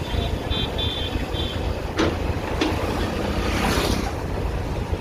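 Motor vehicle and road noise from travelling along a town street: a steady low rumble, with a few short high chirps in the first second and a half and a brief swell of passing-traffic noise near the end.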